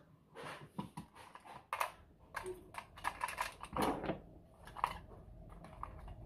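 Irregular small clicks and taps of a plastic battery toy train and a small screwdriver being handled and set down on a wooden worktop, as the train is opened up to get at its batteries.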